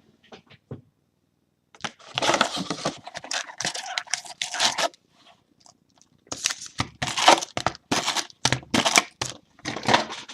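Packaging of a trading-card box being torn open: a long spell of tearing and crinkling, then a run of about six shorter rips.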